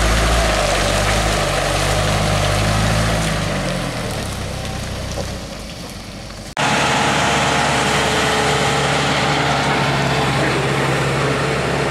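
Truck engine running as the truck pulls away on a muddy dirt road, fading over several seconds. After an abrupt cut, a truck engine runs steadily close by.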